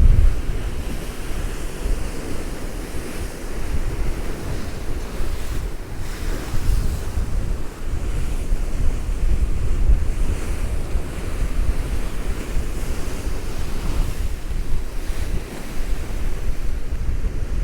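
Heavy surf of a stormy North Sea rolling in and breaking, under gale-force wind buffeting the microphone with a low rumble.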